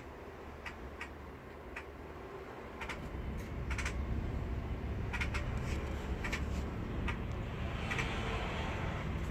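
Short, sharp clicking call notes from a bulbul, coming irregularly, over a low background rumble that grows louder about three seconds in.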